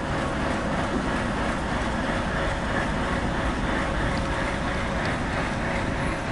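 Captrain class 232 'Ludmilla' diesel locomotive running steadily as it creeps forward at shunting speed, its Kolomna V16 diesel giving an even rumble with a faint steady hum over it.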